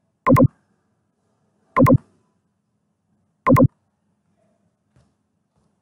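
Computer mouse clicking three times, each a quick double strike, about a second and a half apart, followed by one faint tick near the end.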